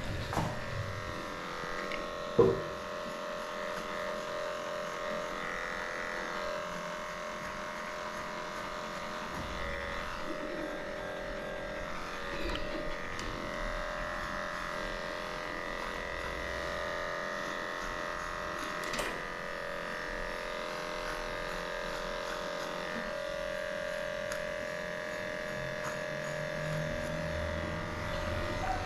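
Electric dog grooming clippers running with a steady motor whine, with one sharp click about two and a half seconds in.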